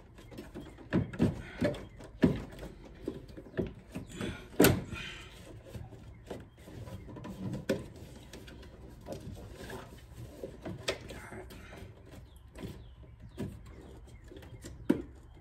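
Irregular knocks, clicks and scrapes of hard plastic as an engine air filter and its plastic air box are worked loose and pulled up by hand, with sharper knocks about two and a half seconds in and again near five seconds.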